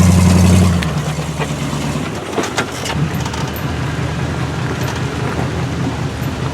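Off-road vehicle engine running with a steady low rumble, a few sharp knocks and clatter over it in the first few seconds.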